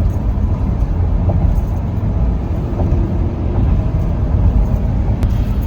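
A car driving at speed: steady low road and engine rumble.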